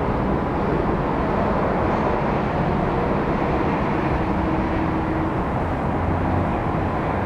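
Steady low rumble of outdoor background noise, with a faint brief hum twice near the middle.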